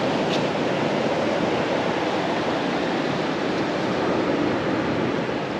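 Sea surf washing on the beach: a steady, even rush of noise.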